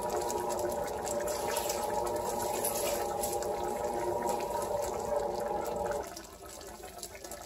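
Thick tahini sauce simmering around chicken thighs and green beans in a cast-iron skillet, a fine crackle of bubbling. A steady hum of several tones runs under it and stops about six seconds in, leaving the quieter bubbling.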